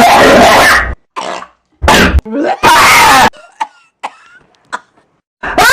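Loud, harsh coughing and throat-clearing: a long first fit, then several shorter coughs, a few faint squeaky sounds, and another loud cough near the end.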